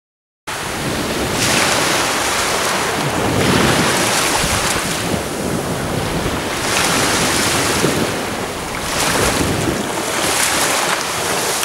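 Small waves breaking and washing up a beach, surging about every two seconds, with wind rumbling on the microphone. The sound begins about half a second in.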